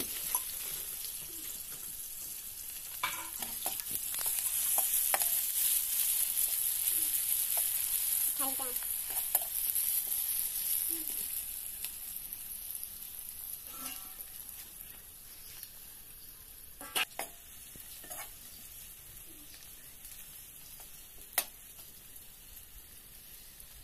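Eggs frying and being scrambled in hot oil in a steel wok: a steady sizzle that is strongest in the first half and dies down after about midway. A metal ladle scrapes and knocks against the wok now and then, with the sharpest knocks near the end.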